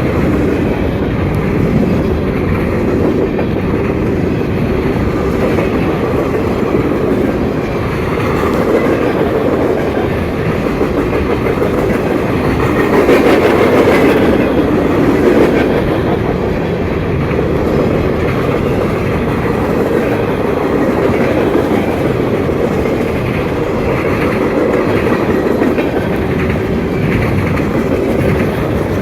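Freight train cars rolling past at speed, a steady rumble with wheels clattering over the rail joints, a little louder about halfway through.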